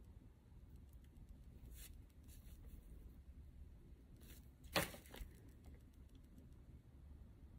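Faint tabletop handling noises from painting materials: a few soft rustles, then a sharp tap just under five seconds in and a lighter one right after.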